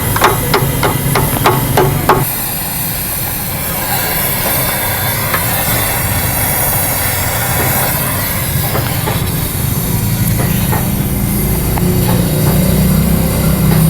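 A hammer striking a sheet-metal car body panel in quick, even blows, about four a second, for the first two seconds. Then the blows stop and a steady hiss with a low hum runs on.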